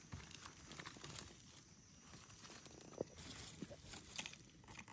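Faint rustling of dry leaf litter and soil with scattered small clicks and scrapes, as gloved hands and a knife dig around mushrooms; one sharper click about three seconds in.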